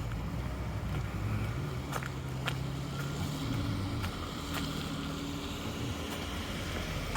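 Motor vehicle engine running nearby with a steady low hum, plus a few sharp clicks now and then.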